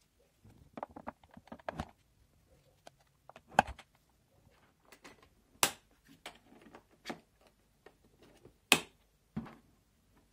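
Hands handling a hard plastic winter fishing box (Eclipse Ice Fishbox): scattered plastic clicks, taps and knocks from its lid and fittings, with several sharper clicks, the loudest about two-thirds of the way in.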